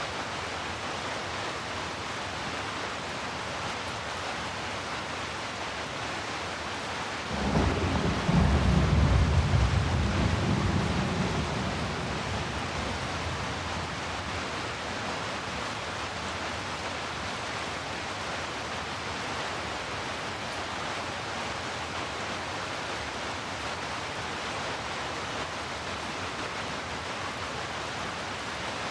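Steady heavy rain hiss, with a roll of thunder breaking in about seven seconds in: a deep rumble that lasts a few seconds and fades away.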